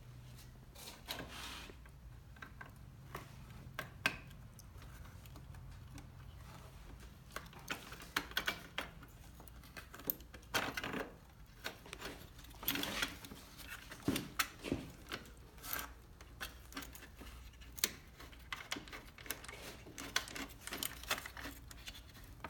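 Hands and tools working on an ATV's wiring and parts: scattered clicks, light clinks and rustling. A low steady hum runs underneath.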